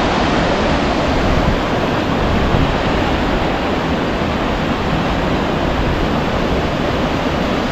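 Steady rush of river water flowing at a barrage, an even hiss without a break.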